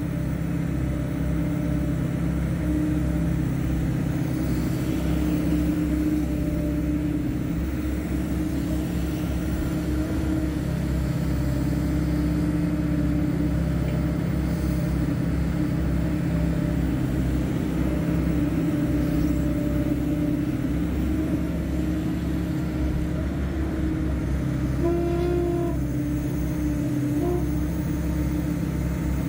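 Hydraulic excavator's diesel engine running steadily under working load. A short higher tone sounds about 25 seconds in and again, more briefly, about two seconds later.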